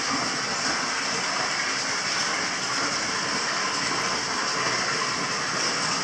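Steady rushing of hot-spring water running into the bath, an even unbroken noise with no pauses.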